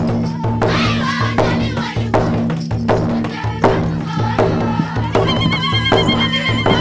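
Music with singing over a steady percussion beat. A long, wavering high note comes in about five seconds in.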